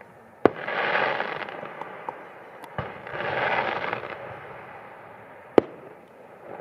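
Aerial fireworks bursting: a sharp bang about half a second in, each of the first two bangs followed by about a second of rushing noise, a softer bang near the middle, and the loudest single bang near the end.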